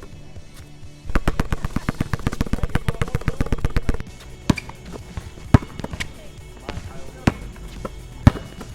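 Basketballs bouncing: a rapid run of about ten bounces a second for some three seconds, then single sharp bounces about a second or two apart.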